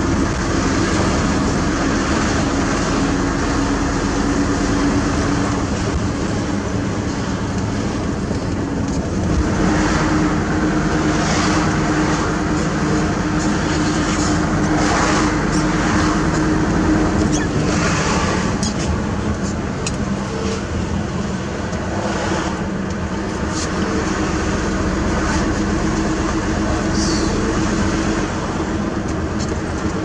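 A truck's engine running steadily under way, heard from inside the cab, with road and tyre noise. Its note changes about a third of the way through and again around two-thirds.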